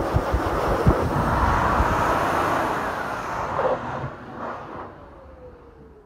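Dog grooming blaster (high-velocity dryer) blowing air out of its hose. It is switched off about three seconds in, and the motor's whine falls as it spins down.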